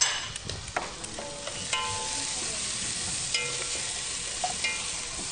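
Chopped onion, carrot and celery (mirepoix) sizzling in hot oil in a pot while being stirred, the utensil giving a few sharp knocks against the pot.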